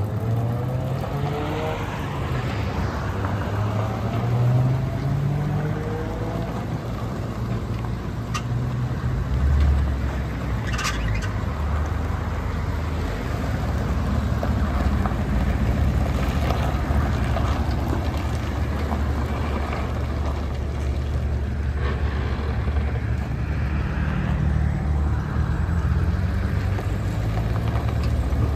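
1980 Chevrolet C30 dump truck engine running as the truck is driven, the engine note rising and falling as it revs and settles several times. Two short sharp clicks come about eight and eleven seconds in.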